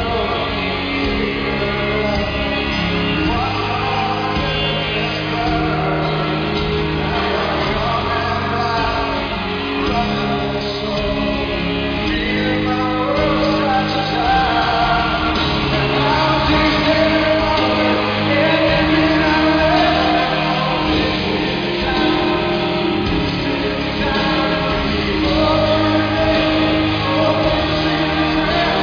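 Live rock band performance with a male lead vocal singing a slow ballad, played loud in a large concert arena.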